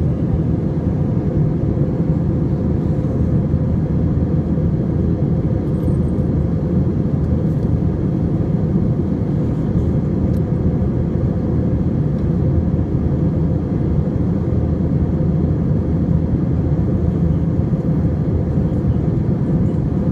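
Jet airliner cabin noise in flight: a steady low rush of engine and airflow sound through the fuselage, even in level.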